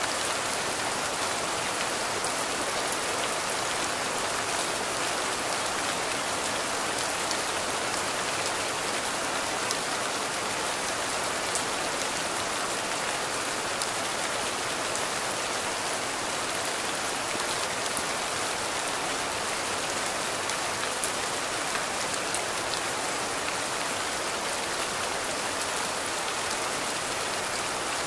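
Steady rain falling: an even hiss with many small, scattered ticks of single drops.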